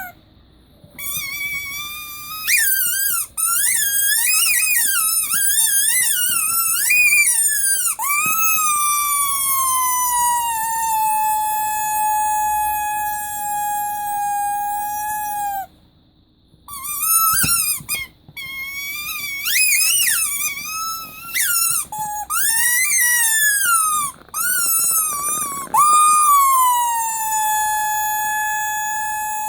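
Rubber teddy-bear squeaky toy being squeezed: wavering, bending squeaks, then a long whistling tone that dips in pitch and holds steady. The pattern happens twice, with a short gap between.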